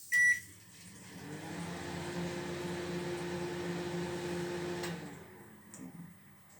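A short beep from the microwave oven's keypad, then the oven running with a steady hum for about four seconds before it stops.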